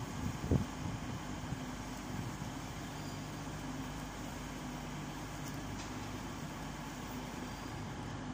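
Class 222 Meridian diesel multiple unit's underfloor engines running with a steady low drone, with a couple of sharp knocks just after the start.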